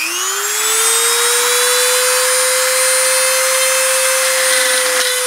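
Milwaukee rotary tool with a router bit spinning up, its whine rising in pitch for about the first second and then holding steady at a fast speed while the bit grinds away a small peg on a white metal model machine-gun receiver.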